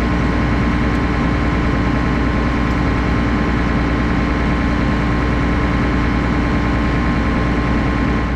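Combine harvester running steadily: an even engine and machinery hum with a few constant tones above it.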